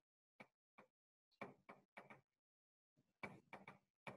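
Chalk tapping and scraping on a blackboard as words are written: a string of short, irregular taps, bunching up about three seconds in.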